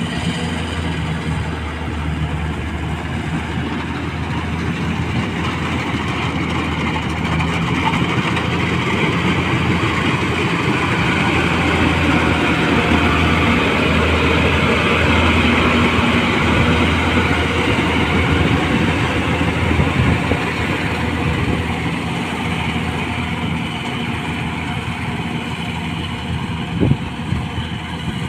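Tracked rice combine harvester running under load while cutting and threshing rice: a steady engine hum with the clatter of the cutter and threshing drum over it, louder in the middle as the machine passes close, then easing off, with a few sharp knocks near the end.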